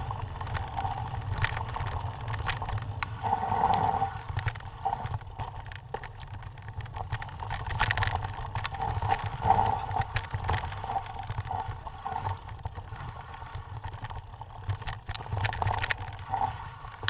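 Mountain bike riding over a rocky dirt singletrack, heard from a camera mounted on the bike or rider: a steady low rumble of wind and tyres with frequent rattles and clicks from the bike as it bounces over stones.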